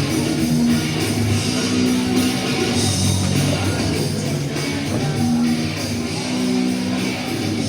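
Loud rock music with guitar playing steadily.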